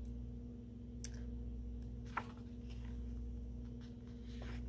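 Book pages being turned by hand: a few short paper flicks and clicks, about a second in, a little after two seconds and near the end, over a steady low hum.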